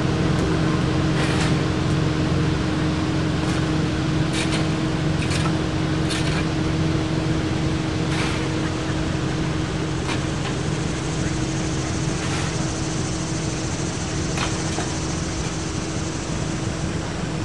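Steady mechanical hum, with sharp scrapes and clatters every one to three seconds as a shovel digs into a pile of coal to fire a steam traction engine.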